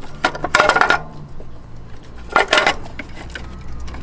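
Metal tools and engine parts clinking and clattering against each other, in short bursts of clicks: one cluster in the first second and another about two and a half seconds in.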